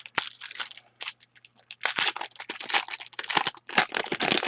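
A trading card pack's wrapper crinkling and tearing as it is opened by hand, in a run of irregular crackles with louder bursts about two and four seconds in.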